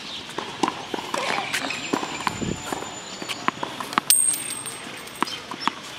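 Irregular sharp knocks of tennis balls being bounced on a hard court. About four seconds in there is one sharper click followed by a brief high ringing tone.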